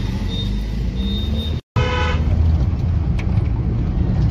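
Vehicle horn sounding in a run of short toots that stop abruptly about one and a half seconds in, then a single short horn beep over the steady low rumble of traffic.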